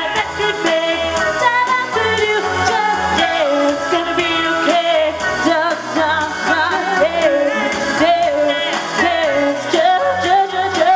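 Pop music with a sung melody over a steady bass beat.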